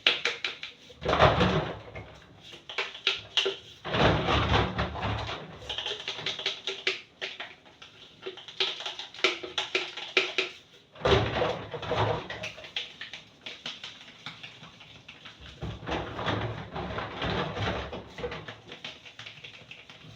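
Kitchen cleaning and handling noises: items being moved and set down, with a quick run of clicks, knocks and rustles that comes in bursts.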